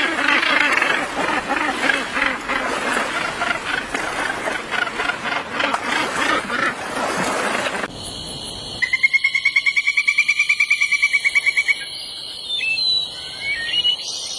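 A dense chorus of many overlapping croaking animal calls that cuts off abruptly. It gives way to a quieter scene: a rapid, even trill of about nine notes a second lasting about three seconds, then a few short chirps.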